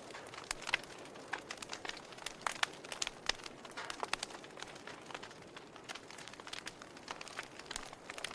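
Wood fire burning in a fireplace: irregular crackles and sharp pops, several a second, over a soft hiss.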